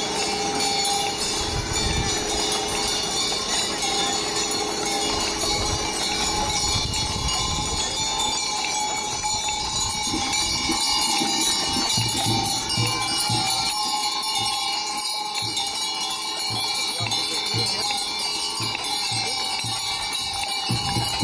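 Jingling of the bells and chains on the decorated harness of a team of dray horses pulling a wagon, steady throughout, with regular low thuds in the second half.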